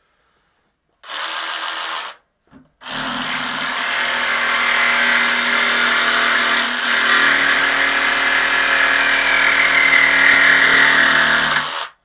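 Cordless mini reciprocating saw: a short run of about a second, a pause, then a steady run of about nine seconds as the blade cuts through a weather-strip nail in a door jamb.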